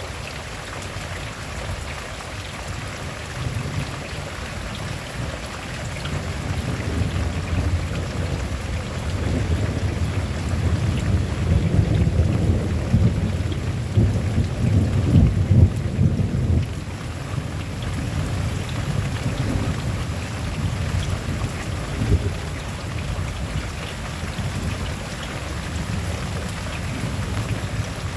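Steady rain falling, with a long roll of thunder that builds from a few seconds in, peaks about halfway through and rumbles away, and a short sharper crack of thunder a few seconds later.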